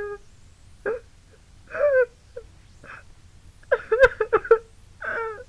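A woman crying: separate high-pitched wailing sobs with pauses between, then a quick run of broken, catching sobs a little before the end, with one sharp click in the middle of it.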